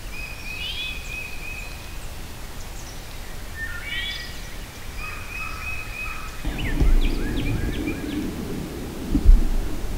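Several songbirds singing in the woods: short repeated trills and quick rising whistled notes. About two-thirds of the way in, low rustling and handling noise starts as the camera is moved, with a sharp thump near the end, the loudest sound.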